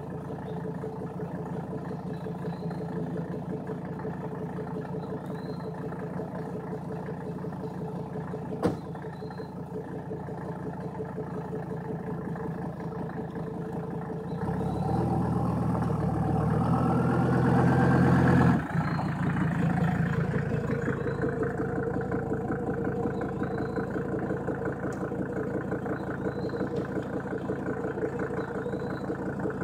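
Mercedes-Benz W123 engine idling steadily while it warms up on its first start in three months. A single sharp knock comes about nine seconds in, like a car door shutting. About fifteen seconds in the engine runs louder and rises in pitch for about four seconds as the car is pulled forward, then drops abruptly back to idle.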